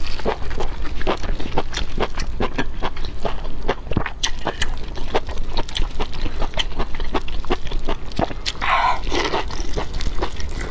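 Close-miked eating of spicy honeycomb beef tripe: wet, sticky biting and chewing smacks and mouth clicks in quick, irregular succession, with a short breathy mouth sound about nine seconds in. A steady low hum runs underneath.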